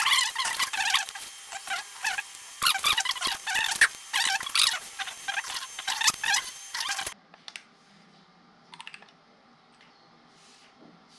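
Rapid small clicks and scrapes of metal tweezers and a small screwdriver against the plastic body and gimbal of a DJI Mavic Mini drone. About seven seconds in they stop abruptly, leaving faint room tone with a few soft clicks.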